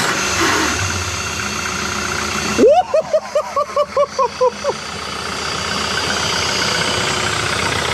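Yamaha four-cylinder outboard motor, its cowling off, idling steadily just after starting on newly replaced spark plugs. About three seconds in, a rising whoop and then about ten quick, pitched calls over some two seconds sound over the engine.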